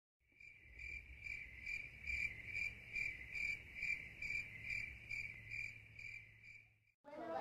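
A cricket chirping in a steady, even rhythm, a little over two high chirps a second, cutting off suddenly near the end.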